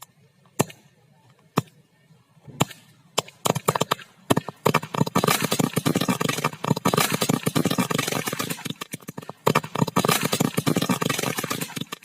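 Firecrackers going off: a few separate sharp bangs in the first three seconds, then a dense, rapid crackle of many small bangs. It breaks off briefly about nine seconds in, then starts again.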